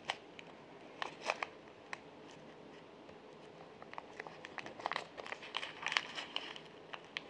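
Faint crinkling of a small plastic bag and light scattered clicks as fingers pick a single metal headpin out of a bundle of pins, the handling getting busier about halfway through.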